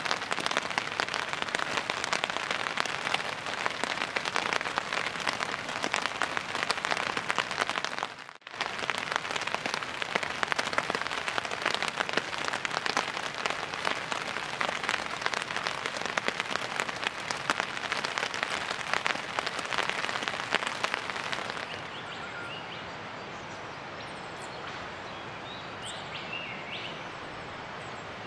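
Steady rain falling, a dense patter of drops, with a brief break about eight seconds in. About twenty-two seconds in it gives way to a quieter, even forest background with a few short bird chirps.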